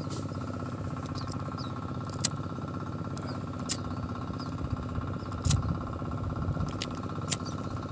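A plastic lighter being struck four times, sharp clicks spaced a second or two apart, as it is held to a firecracker fuse. A steady motor-like drone runs underneath.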